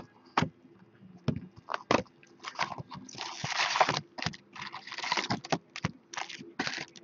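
A couple of sharp scissor snips cutting the plastic shrink-wrap on a box of hockey cards. Then crackling rustles as the wrapping and the foil-wrapped card packs are pulled out and handled, loudest a few seconds in.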